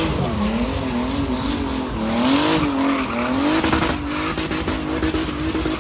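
Drift car running a gymkhana course, its engine revving up and down in quick swings with tyres squealing. Near the end the engine holds a steady high note.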